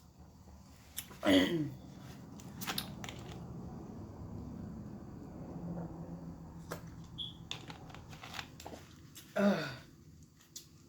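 A person chewing food close to the microphone, with small wet mouth clicks and crunches, and two short hums of enjoyment with falling pitch, one about a second in and one near the end.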